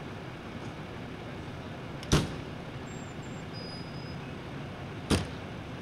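Steady idling of a fire department rescue ambulance, with two sharp bangs about three seconds apart.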